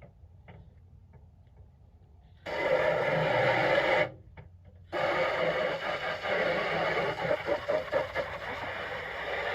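Water spraying from a hose onto a tool box, starting suddenly about two and a half seconds in after a few faint clicks, cutting off for about a second, then running on with an uneven spatter.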